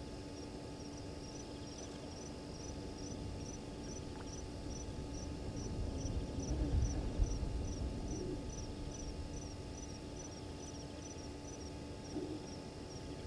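An insect, likely a cricket, chirping with a regular high-pitched pulse, a few chirps a second, against a faint steady hum. A low rumble swells and fades about halfway through.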